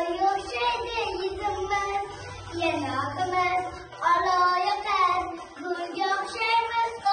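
A young girl singing a song in Uzbek in a clear, melodic voice, holding and bending notes, over a musical backing track.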